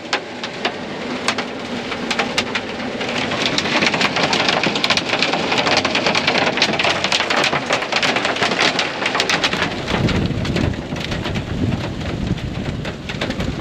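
Pea-sized hail and heavy rain pelting down: dense, rapid ticks of hailstones over a steady rain hiss, joined by a low rumble from about ten seconds in.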